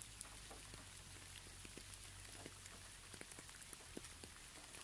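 Faint steady rain: an even hiss with scattered drops ticking irregularly.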